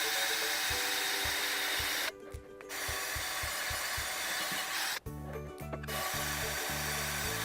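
Power tool scouring rust off a cast iron skillet: a steady abrasive grinding that cuts out for a moment about two seconds in and again for nearly a second about five seconds in.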